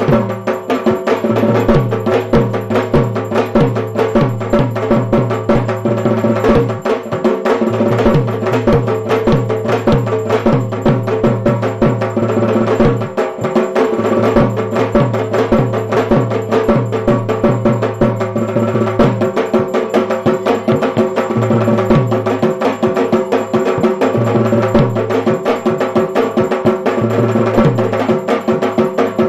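Music with drums and percussion beating a fast, steady rhythm.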